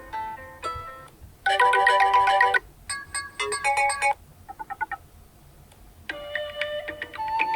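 BlackView BV6600E smartphone ringtones playing: short electronic melodies follow one another, each lasting about a second before it breaks off.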